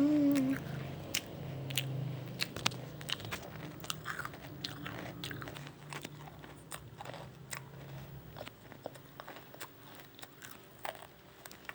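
Close-up biting and chewing of a crisp wafer ice cream cone: a run of sharp, irregular crunches.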